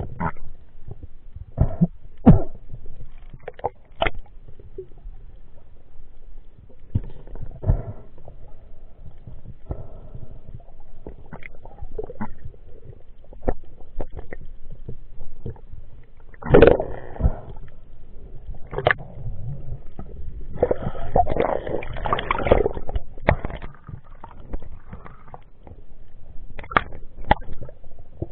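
Underwater sound heard through an action camera's waterproof housing: muffled water movement with scattered sharp clicks and knocks, and longer gurgling bursts a little past the middle and again a few seconds later.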